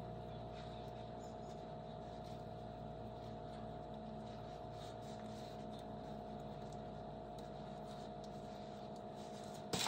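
Faint steady room hum with a constant mid-pitched tone, and a short click near the end.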